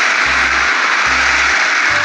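Background music with a steady bass beat, under a loud continuous hissing noise.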